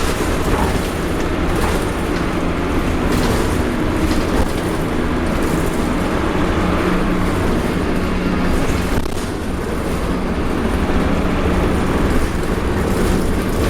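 Dennis Dart single-decker bus running, with a steady engine and drivetrain drone and low tones that waver slightly in pitch.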